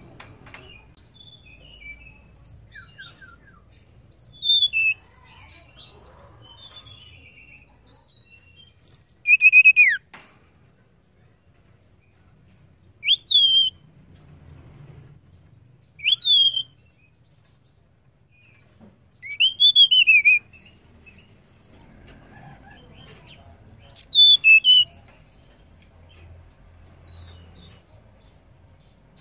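Blue flycatcher (tledekan, a Cyornis) giving six short whistled phrases of quick, mostly falling notes, each about a second long and a few seconds apart.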